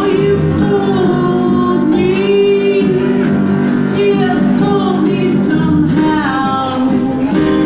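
Live band playing a song: a lead singer's held, wavering vocal lines over keyboards and sustained low notes.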